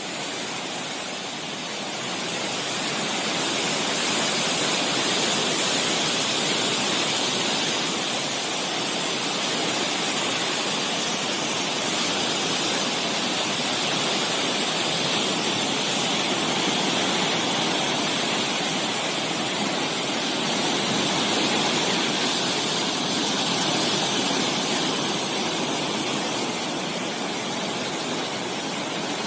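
Heavy flood discharge through the fully opened gates of a river barrage: a steady rush of churning water that keeps up without a break.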